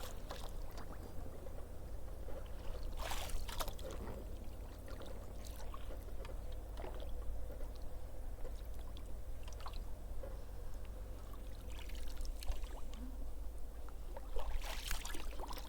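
Oars dipping and pulling through the water as a small boat is rowed, with scattered splashes and drips over a steady low rumble.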